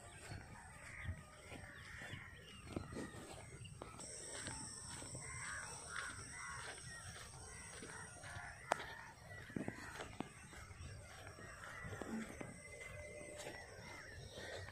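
Crows cawing faintly and irregularly, with a few soft knocks.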